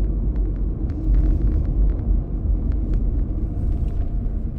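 Steady low rumble with a few faint clicks scattered through it.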